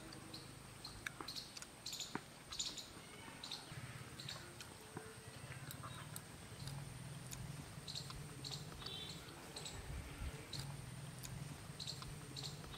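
Faint small-bird chirps, short high calls every second or so with a quick trill about nine seconds in, over a low steady hum.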